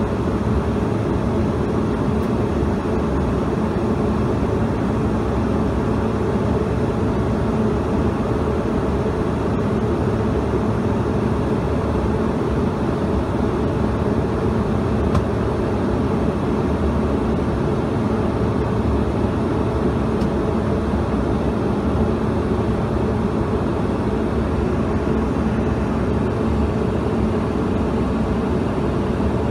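Steady cabin noise of a CRJ-200 regional jet in flight: airflow over the fuselage and its two rear-mounted GE CF34 turbofans, heard from a window seat inside the cabin. An even, deep rush that holds level throughout.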